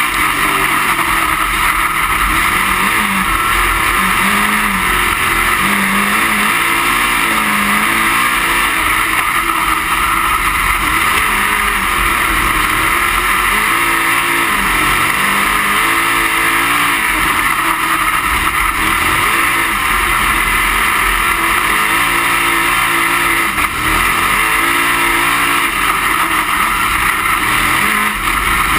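Dirt-track race car engine running hard, heard from inside the cockpit over loud, constant road and wind noise. The engine note repeatedly climbs and drops back as the car laps the track.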